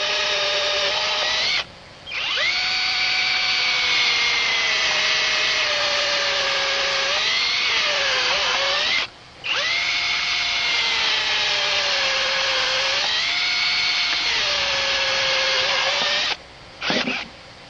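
Chainsaw running at high revs while cutting through a log in a chainsaw mill. Its pitch sags and recovers as it loads up in the cut about eight seconds in. The sound breaks off abruptly three times.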